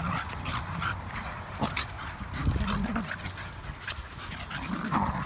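Two collies playfighting: panting and short low growls, with paws scuffling on gravel and dry leaves.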